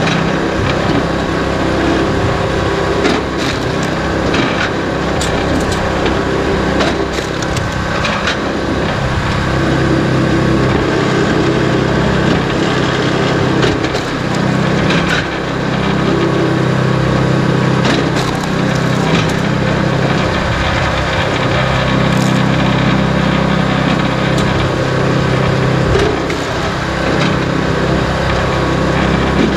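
SuperSplit flywheel log splitter's small gas engine running steadily, with firewood cracking and splintering as the ram splits it, repeatedly at irregular intervals, and split pieces knocking against the steel table.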